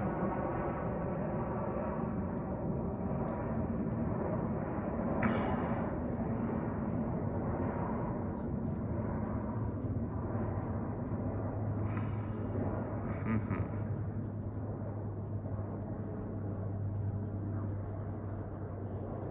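Steady night-time urban background noise: a low hum with a faint engine-like drone. A short high-pitched sound comes about five seconds in, and a brief whine about twelve seconds in.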